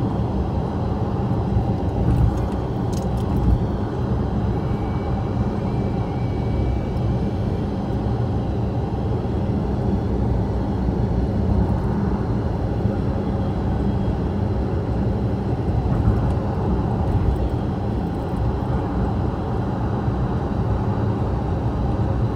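Car cruising at expressway speed, heard from inside the cabin: a steady low rumble of road and engine noise.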